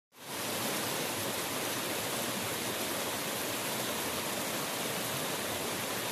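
Steady rush of flowing water from a mountain stream, fading in quickly at the start.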